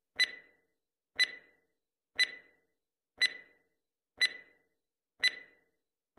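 Countdown-timer ticking sound effect: a sharp tick once a second, each with a short ringing tail, six ticks in a row.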